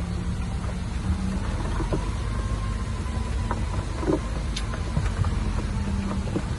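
Heavy diesel construction machine running steadily, with a low engine drone, a faint whine that rises and falls, and a few light clanks scattered through it.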